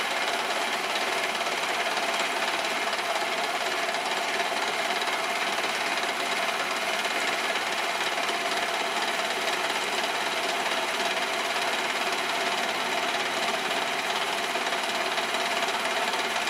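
Lathe-mill combo machine running steadily, its spindle turning an end mill that takes a light cut through stacked sheet metal. A constant tone sits over a wide hiss and does not change.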